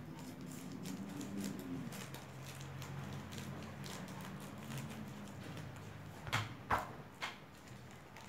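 Plastic packaging of a sealed comic collector's set being cut open along its bottom edge, with light crackles and clicks. Two louder crinkling snaps come about six and a half seconds in. A low hum runs under the first five seconds.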